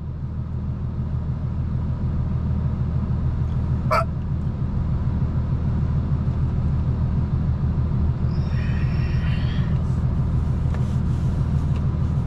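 Car engine idling, heard from inside the cabin as a steady low hum. There is a brief high squeak about four seconds in, and a thin high tone lasting about a second and a half past the middle.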